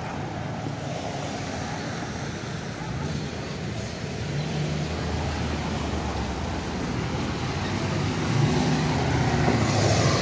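Slow street traffic passing close: car and pickup engines running, with tyre noise on wet pavement, louder near the end as a pickup truck rolls by.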